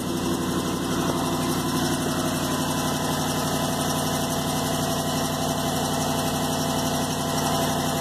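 Jeep 5.7-litre Hemi V8 idling steadily soon after a cold start, with a fast, even tick from an exhaust leak: one upper rear bolt on the driver-side exhaust manifold is broken, which the owner identifies as the cause of the tick.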